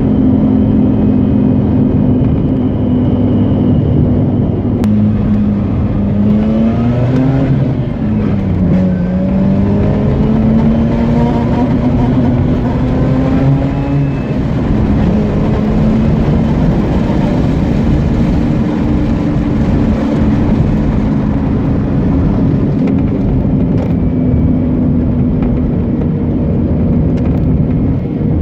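Mazda RX-8's Renesis rotary engine under way: it runs steadily, then revs climb twice, from about six seconds in and again after a drop near eight seconds, until a drop near fourteen seconds, after which it settles back to a steady run.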